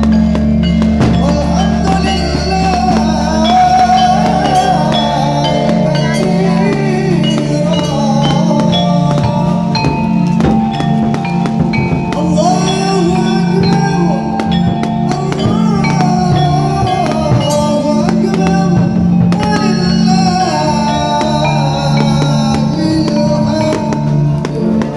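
Music with singing over a steady low bass.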